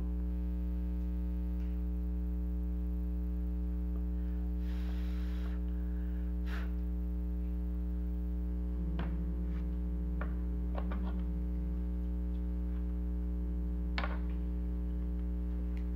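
Steady low electrical mains hum, with a few faint clicks and a brief hiss about five seconds in.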